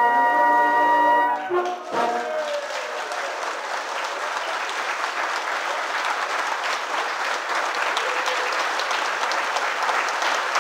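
Brass band cornets holding a final chord that stops about a second and a half in, followed by steady audience applause.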